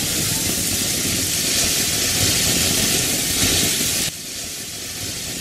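Indian National Fireworks Ashrafi Koti fountain firework spraying sparks with a loud, steady hiss. The hiss drops abruptly in level about four seconds in and carries on more quietly.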